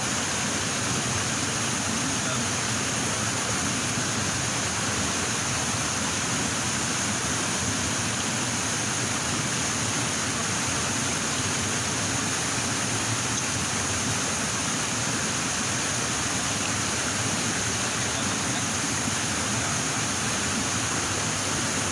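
Rushing stream water: a steady, even hiss that never changes in level.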